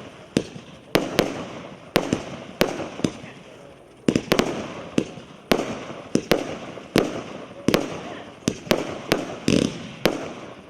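A Maxsem MC116 'Scintillant' 1-inch, 64-shot fireworks cake firing. Sharp bangs come in quick irregular succession, about two a second, each with a short noisy tail that dies away.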